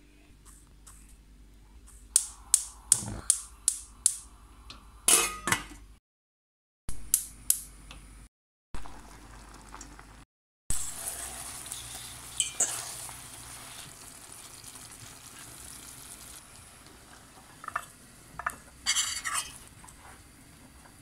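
Metal spoon clinking and scraping in a stainless steel pot of whole carrots, with a quick run of sharp clicks near the start. Partway through comes a steady hiss of the butter and brown-sugar glaze simmering. The sound is broken by a few short dead-silent gaps.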